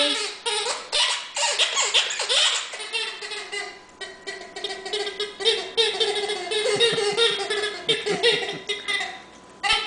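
A dog's rubber squeaky toy squeaking over and over in quick succession as the dog chews on it, with a short pause near the end.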